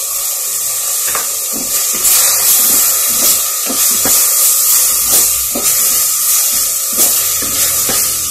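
Onion and tomato sizzling in oil in a clay pot. A wooden spatula stirs and scrapes against the pot, making repeated short scrapes and knocks from about a second in.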